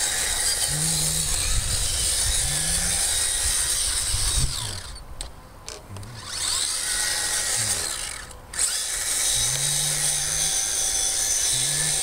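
Brushless Kyosho Blizzard SR RC tracked snowcat driving: the tracks and drivetrain clatter while the motor's pitch rises in short, repeated bursts of throttle. The sound drops off briefly twice, about five and about eight seconds in.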